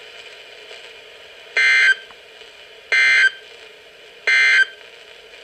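Three short bursts of SAME digital data tones, about 1.3 s apart, over a steady radio hiss: the end-of-message code that closes a NOAA Weather Radio alert broadcast.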